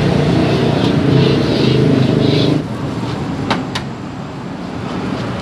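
A motor vehicle's engine rumbling loudly as it passes, then fading after about two and a half seconds; two light clicks follow soon after.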